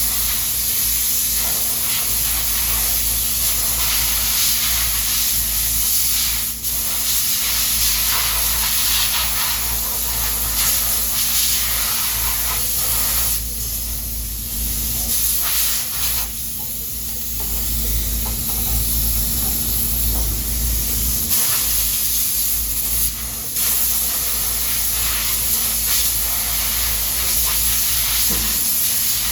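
Continuous loud hissing noise over a low rumble, with a faint steady hum; the hiss dips briefly a few times.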